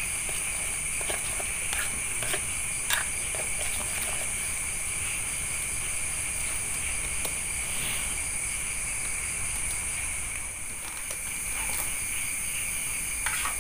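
Steady, high-pitched chorus of night insects, with a few light clinks of a spoon against an aluminium pot in the first few seconds.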